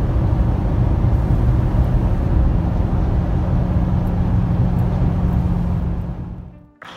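Steady engine and road noise heard inside a Toyota Tundra pickup's cab as it climbs a grade towing a 5th-wheel trailer, with a steady low drone; it fades out near the end.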